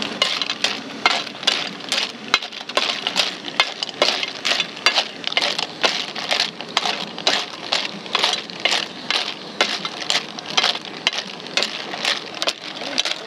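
Sea snail shells clattering against a metal pan and each other as a spatula scrapes and stirs them, in sharp repeated rattles about two to three a second.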